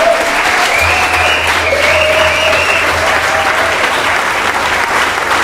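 Crowd applauding, steady and sustained, with a single held note riding over the clapping for the first three seconds.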